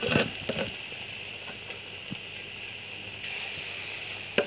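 Gram-flour batter pakoras frying in hot oil in an iron karahi: a steady sizzling hiss, with a few sharp clicks in the first half-second and one sharp click near the end.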